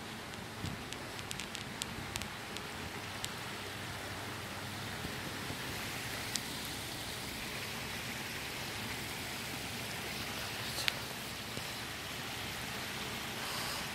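Steady rushing of river water spilling over a low concrete weir. A few light clicks in the first few seconds, and once or twice later.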